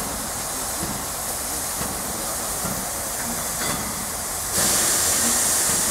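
Ol49 steam locomotive hissing steam as it moves slowly with its train, with faint low thuds about once a second. About four and a half seconds in, a louder, sharper hiss of escaping steam sets in and holds.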